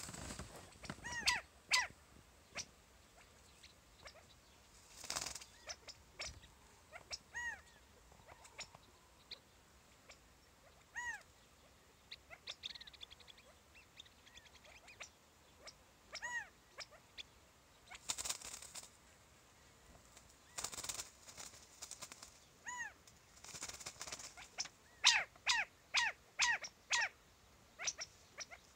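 Quail giving short, arched call notes, some singly and some in quick runs of several, with a few brief bursts of rustling noise in between.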